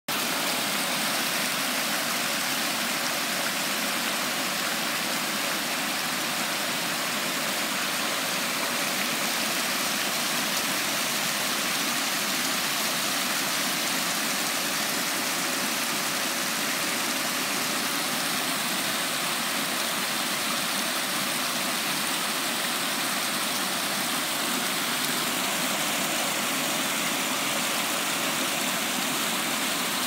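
Small waterfall with water rushing steadily over stone, an even hiss that does not change.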